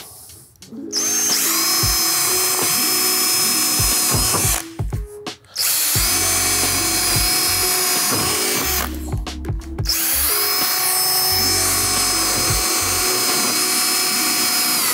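Cordless drill boring rivet holes through the metal peak flashing into the Z-closures beneath: three runs of a few seconds each, with a steady motor whine and short pauses between holes.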